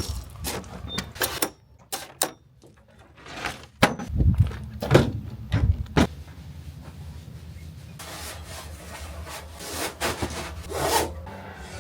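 Camping gear being handled and packed away: a string of knocks, clicks and rubbing or scraping sounds, with a low steady rumble underneath from about four seconds in.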